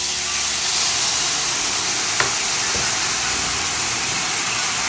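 Soy-sauce glaze poured into a hot, oiled pan of fried tofu cubes, sizzling steadily and loudly as the liquid hits the hot oil. A single light click comes about two seconds in.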